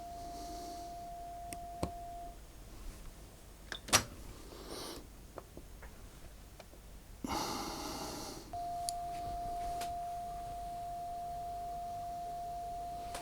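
Steady single-pitched calibration test tone during reel-to-reel deck alignment. It stops about two seconds in. Sharp clicks follow, the loudest about four seconds in, then a short burst of rustling noise, and the tone comes back about eight and a half seconds in.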